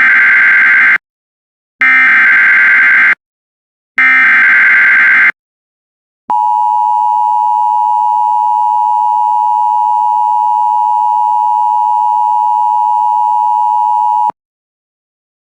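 Emergency Alert System SAME header: three short bursts of digital data warble, each about a second long. After a pause comes the EAS attention signal, a steady two-tone beep held for about eight seconds that cuts off suddenly. It announces that an emergency bulletin follows.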